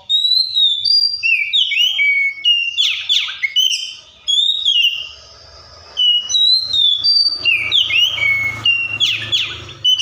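Oriental magpie-robin singing: rapid varied phrases of clear whistled notes that slide up and down, mixed with harsh rasping notes. It sings in two bursts, breaking off for about a second halfway through.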